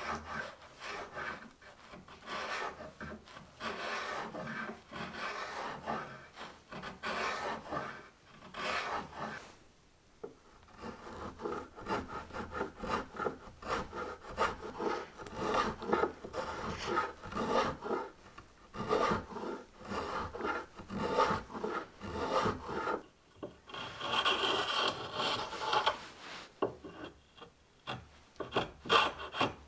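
Spokeshave shaving the edge of an apple-wood board in repeated short scraping strokes, one or two a second. There is a brief pause about ten seconds in, and the strokes come quicker near the end.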